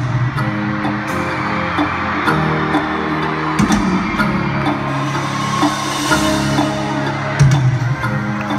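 Live pop music played loudly over an arena sound system, heard from within the audience: held bass notes with regular drum hits.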